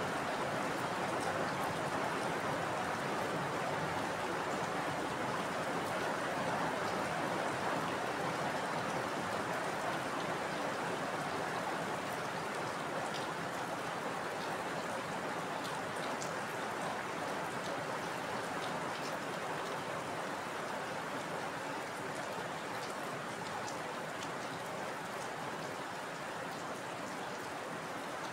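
Heavy rain falling steadily: an even hiss of rainfall with scattered individual drop ticks, easing slightly toward the end. No thunder.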